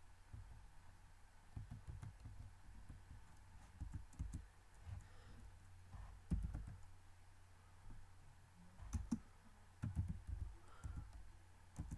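Computer keyboard being typed on, with clicking: irregular, muffled keystrokes and a few sharper clicks, fairly faint.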